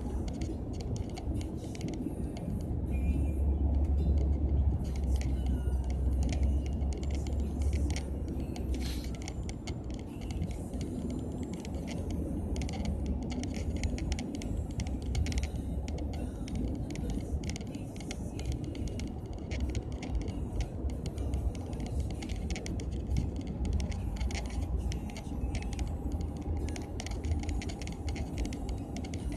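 Car cabin road noise from a taxi moving in traffic: a steady deep rumble of engine and tyres, louder from about three to eight seconds in, with light clicks and rattles throughout.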